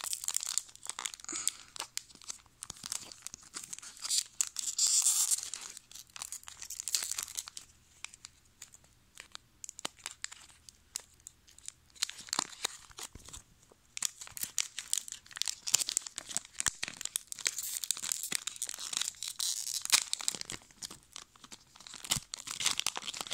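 The foil wrapper of a Pokémon trading-card booster pack being torn open and crinkled, in irregular bursts of rustling and crackling. It is calmer for a few seconds in the middle, then busier again until the wrapper is torn apart.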